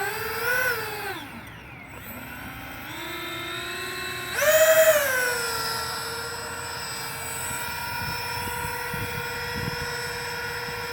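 Twin electric ducted fan motors of an RC Airbus A330 model taxiing: a whine that rises and falls with the throttle, surges sharply about four seconds in, then holds a steady pitch.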